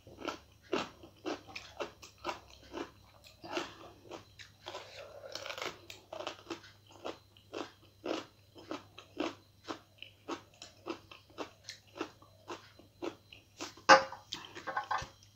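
A person chewing a mouthful of food close to the microphone: short, sharp, wet chewing clicks in a steady rhythm of about two a second, with one louder click near the end.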